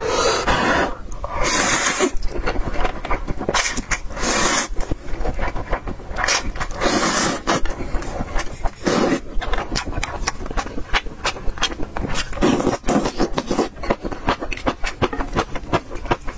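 Close-miked slurping of instant noodles and spicy broth: several long slurps, with rapid wet chewing and lip-smacking clicks in between that grow thicker in the second half.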